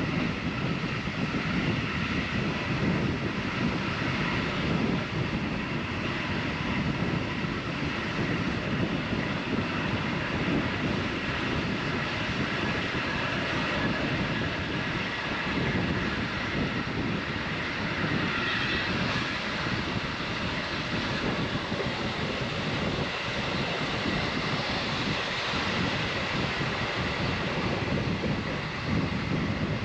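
Steady running noise of the Lucerne–Engelberg Express train under way: a continuous low rumble of wheels on the track, with a faint steady whine above it.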